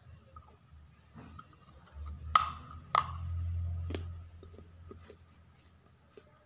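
Fired terracotta clay pot cracking sharply twice, about half a second apart, a little over two seconds in, with a softer crack about a second later; then a few faint crunches as the broken clay is chewed.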